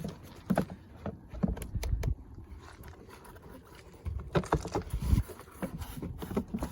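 Irregular clicks, knocks and low thumps of generator parts being handled and fitted back during reassembly of a Predator 3500 inverter generator, with a quieter stretch in the middle.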